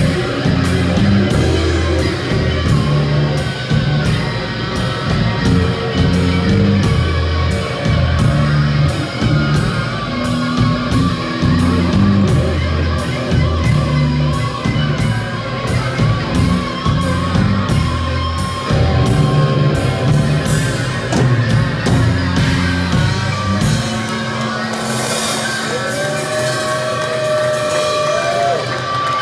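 Live rock band playing, with drum kit and guitar. The drum beat stops about three quarters of the way through and the song rings out on held notes and a cymbal wash as it ends.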